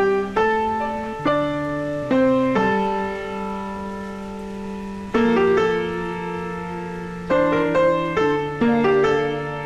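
Slow solo piano music: sustained chords and single notes struck every second or so, each ringing out and fading.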